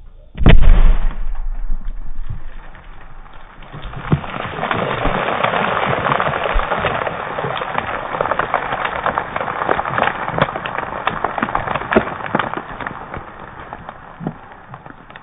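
A single loud blast from a buried tin-container charge of alcohol vapour and air, set off by a spark, about half a second in, with a short low rumble after it. Then several seconds of crackling hiss with many small pops as the site smokes.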